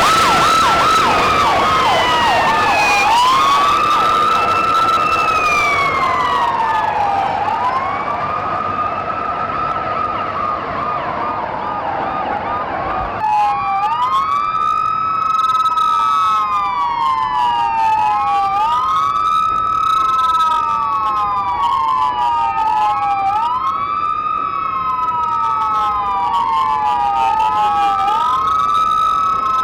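Police car sirens wailing, each one rising and falling slowly every few seconds. About a third of the way through the sound changes abruptly and two sirens wail out of step with each other.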